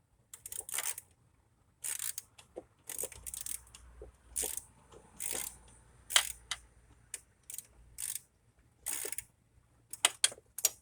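Hand socket ratchet clicking in short irregular bursts as the EGR valve's bolts are run back down, with clinks of metal tools and parts.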